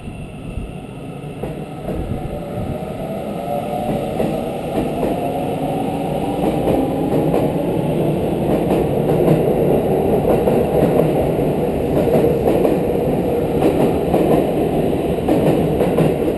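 Seibu 30000 series electric train pulling away from a platform, getting louder as the cars pass close by. In the first seconds its traction motors whine, rising in pitch as it gathers speed, over the roll and clatter of the wheels on the rails.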